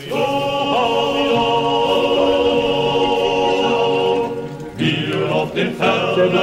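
A group of voices singing a German hiking song together. They hold one long note for about four seconds, break off briefly, then start the next phrase.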